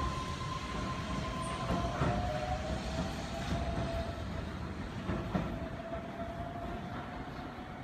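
Keihan 13000 series electric train pulling out. Its motors give a steady whine that hands over, about two seconds in, to a lower whine slowly rising in pitch as the train gathers speed. The wheels clack over rail joints a couple of times, and the sound gradually fades as the train moves away.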